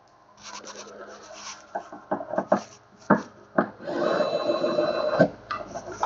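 A small pen-style electric screwdriver drives a servo mounting screw into the model's tail. Scraping and several sharp clicks come first as the screw and bit are seated, then the motor runs steadily for just over a second near the end.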